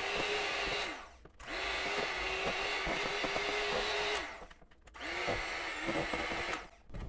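Electric hand mixer running in three stretches with short stops between, its beaters whipping a thick whipped soap base in a plastic bowl, with scattered knocks of the beaters against the bowl.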